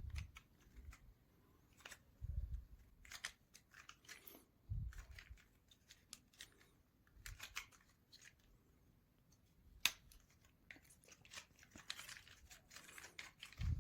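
Small basswood parts of a wooden model kit being handled and pressed into place: scattered faint clicks, taps and soft knocks, with one sharper click about ten seconds in.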